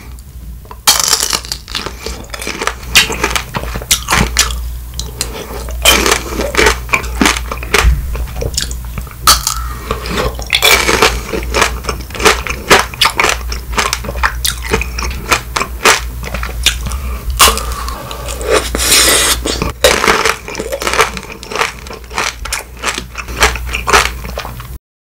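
Close-miked biting and chewing of Shine Muscat grape tanghulu: the hard sugar-candy shell cracks in many sharp, irregular crunches, one after another, starting about a second in.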